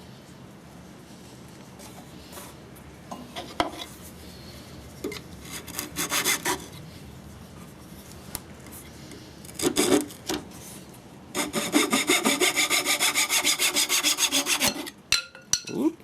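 A wooden dowel being sawn to length, with a few short scrapes at first, then a quick, even run of saw strokes, about five a second, near the end.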